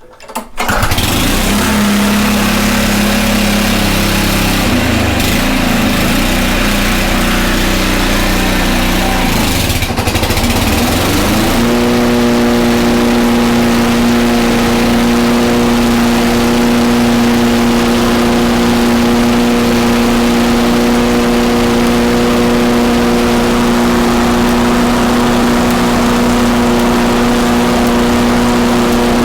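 Honda HRC216 commercial lawn mower engine starting on the pull and running. For about ten seconds it runs at an uneven lower speed, then its pitch rises and it settles into a steady, even run.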